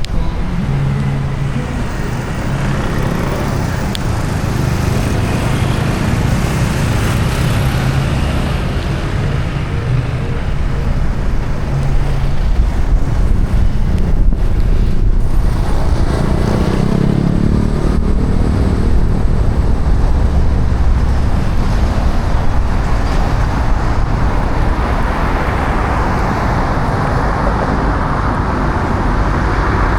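Car being driven in traffic: a steady low engine hum under continuous tyre and road noise, the engine note rising briefly a little past halfway.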